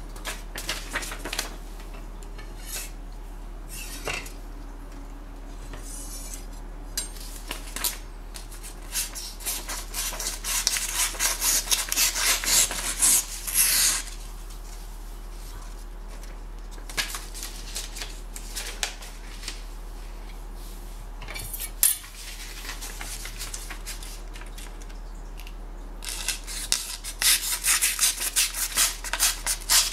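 Stainless steel kitchen knife blades slicing through a sheet of paper held in the air, a test of how sharp they are. There are two spells of quick, crisp crackling, one about nine seconds in and one near the end, with scattered clicks and paper rustles between.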